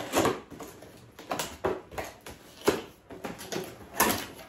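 Sealed cardboard box being torn open by hand, its tape ripped and its flaps pulled back: a run of about five short tearing and rustling scrapes, the loudest just after the start, at about two and a half seconds and at four seconds.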